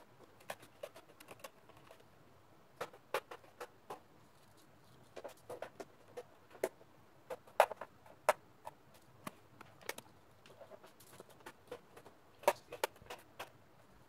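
Irregular sharp clicks and light taps of hard plastic as hands press and work along the HP 15 laptop's plastic bottom case, some louder clicks around the middle and near the end.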